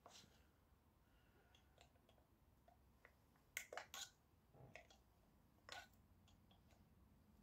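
A handful of faint, sharp metal clicks and scrapes, the loudest in the middle, as a hand tool pries and picks at a small brass ring stuck on an electric motor's shaft.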